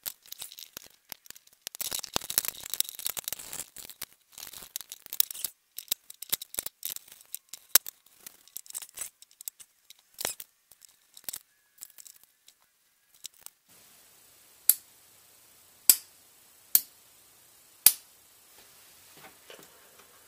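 Wire cutters snipping and wires being handled, a dense run of small clicks and rustles. Then a small toggle switch clicked four times, about a second apart: the new switch being tested, turning the lamp on and off.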